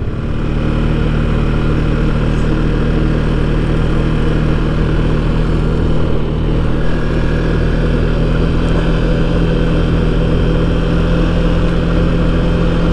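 Can-Am Outlander 700 ATV engine running steadily at an even pitch.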